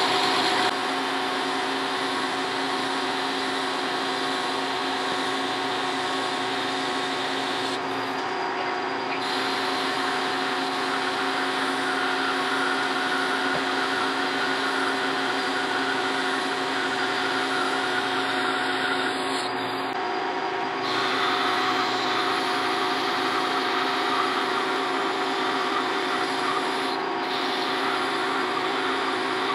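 Metal lathe running and taking a 50-thousandths-deep turning cut on a 1144 steel bar: a steady whine of several tones from the lathe's drive, with the hiss of the cut over it. The 1144 steel breaks into small chips, much like cast iron.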